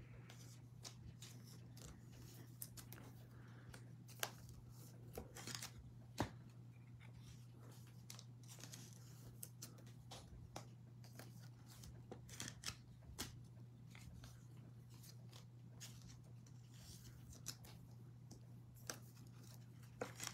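Near silence with faint handling sounds: scattered light clicks and short rustles of trading cards and plastic card sleeves, over a steady low hum.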